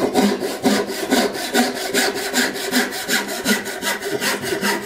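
Small crosscut backsaw cutting a hardwood tote blank, likely white oak, with quick, even strokes. The crosscut teeth are being used for a rip cut along the grain to break out waste pieces.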